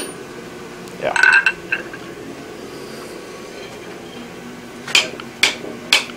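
Hand hammer striking a hot steel bar on the anvil face, bending its end over into a foot: three sharp blows about half a second apart near the end. About a second in, a short ringing clink of steel on the anvil.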